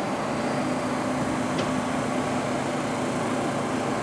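Bombardier R62A subway train standing at the platform with its doors closed, its onboard equipment giving a steady hum. There is a faint click about a second and a half in.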